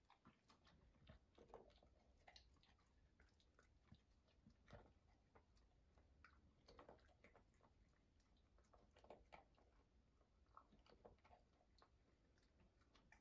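Faint, irregular crunching of a working cocker spaniel chewing dry kibble from a stainless steel bowl.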